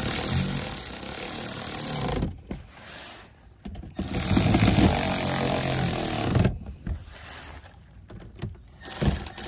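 Cordless electric ratchet running in bursts as it drives 10 mm bolts into a car's plastic underbody panel: two runs of about two seconds each, with another starting near the end.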